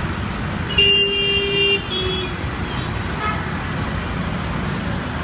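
Steady engine or traffic rumble, with a horn-like tone sounding for about a second, about a second in, then a brief second tone.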